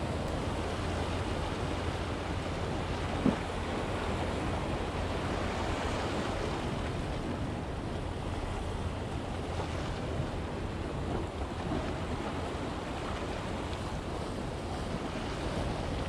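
Small sea waves washing at the shoreline, with wind on the microphone, as a steady rush. One short sharp knock about three seconds in.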